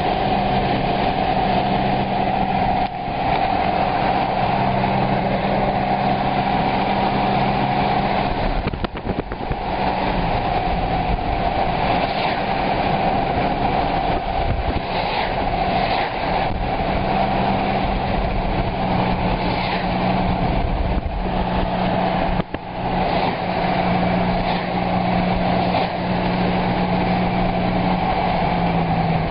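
A vehicle engine running steadily, a low hum with a constant rushing noise over it; the sound breaks off briefly three times.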